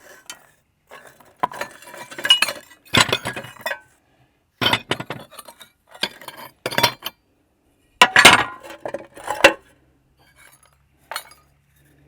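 Shattered ceramic tile pieces clinking and clattering as they are picked through and shifted by hand, in about ten short, irregular bursts with pauses between.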